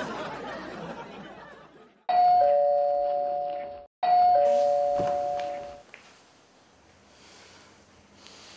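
Electronic two-note "ding-dong" doorbell chime, rung twice about two seconds apart, each a higher note then a lower one fading away. The first chime is cut off abruptly as the second begins.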